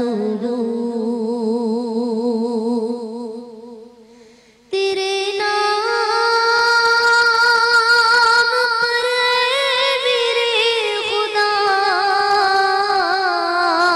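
A woman's voice singing a devotional song into a microphone, holding long notes with a wide vibrato. The first phrase fades away about four seconds in, and after a short gap a new phrase begins at a higher pitch.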